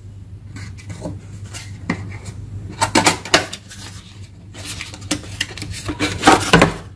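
Dishes and utensils being handled: irregular clinks and knocks in clusters, about a second in, around three seconds, and through the last two seconds, over a steady low hum.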